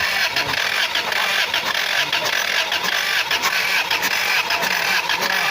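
Freshly rebuilt engine running steadily with a dense, busy clatter.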